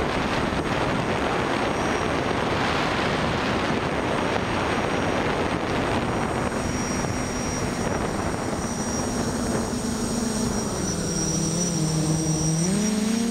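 Quadcopter's Tiger MT2216 brushless motors and Graupner 9x5 propellers in flight, heard with a strong rush of air. In the second half the motor whine settles into steady tones that dip a little and then rise again near the end as the throttle changes.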